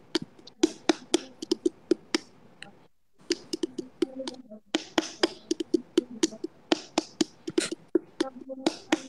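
Irregular run of sharp clicks and soft taps close to the microphone, about three or four a second, cutting out briefly about three seconds in.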